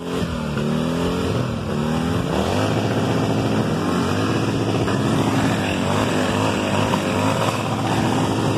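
Motorcycle engines revved again and again, the pitch rising and falling over a steady running note.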